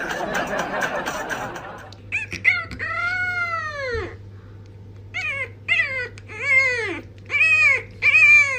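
French bulldog puppy howling: after about two seconds of rustling noise, one long howl and then a string of shorter howls, each rising and then falling in pitch.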